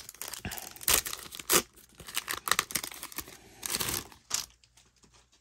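Baseball card pack wrapper being torn open and crinkled in hand: a quick run of short tearing and crinkling noises that dies away in the last second.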